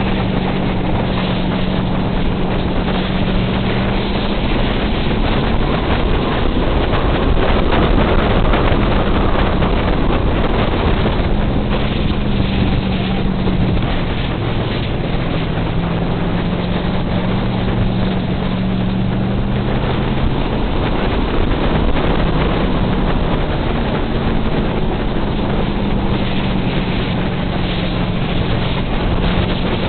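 Enduro race car's engine running steadily under load, its note wavering slightly, with heavy wind noise on the hood-mounted camera's microphone.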